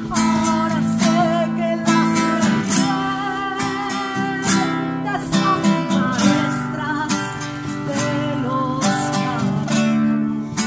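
A woman singing, with a strummed acoustic guitar accompanying her. Her held notes waver in pitch.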